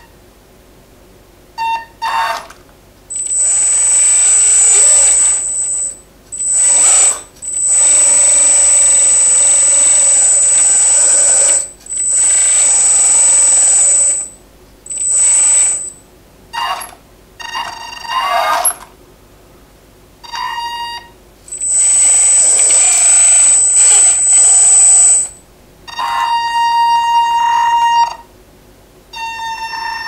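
Hydraulic pump of a 1:14 scale RC skid steer loader switching on and off in bursts of one to three seconds as the lift arms and bucket are worked, each burst a high whine over hiss. Near the end come shorter spells of a steadier, lower electric whine as the loader drives.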